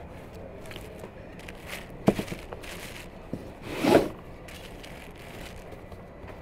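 Bread dough being worked on a floured wooden board with a thin wooden rolling pin: a couple of knocks about two seconds in, then a louder scraping swish as the rolling pin is drawn across the board about four seconds in, followed by soft pressing of the dough with the fingertips.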